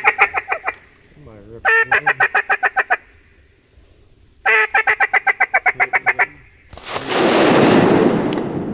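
Hand-blown duck call sounding three fast runs of short quacking notes, about eight a second, each run one to two seconds long and the last one the longest. Near the end a loud rush of noise swells and slowly fades.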